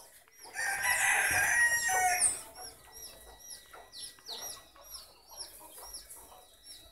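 A rooster crows once, loudly, for under two seconds, ending in a falling note. Short, high, downward-sliding chirps from a small bird repeat about two or three times a second throughout.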